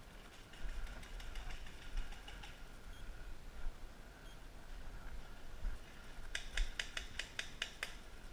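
Paintball marker fired in a rapid string of about eight sharp shots, about five a second, near the end, with fainter clicks from the game earlier on.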